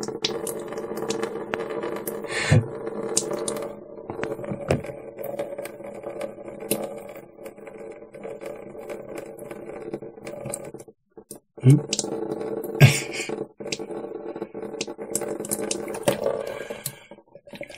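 A man's steady throaty drone from his open mouth during a nasal saline rinse with a NeilMed squeeze bottle, with saline dripping and splashing as it drains from his nostril. The drone breaks off twice, about 11 and 13 seconds in, with two short loud bursts between.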